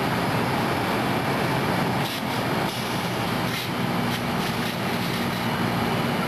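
A fire engine's engine running steadily, a low drone under a broad hiss, as it pumps water to the hose line.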